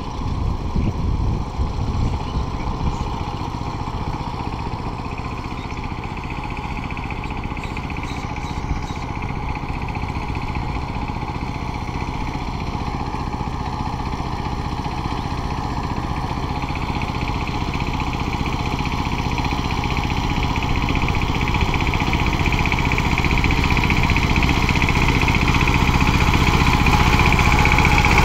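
Two-wheel power tiller's single-cylinder diesel engine running steadily as its cage wheels churn a flooded paddy field, getting steadily louder as the machine comes closer.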